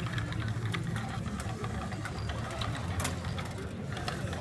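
Small wheeled competition robot's electric drive motors whirring as it drives across a wooden floor, with many scattered clicks and rattles, over a steady low hum.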